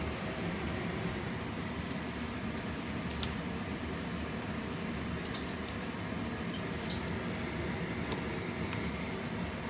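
Hot oil in an electric deep fryer sizzling and bubbling steadily, with scattered faint crackles.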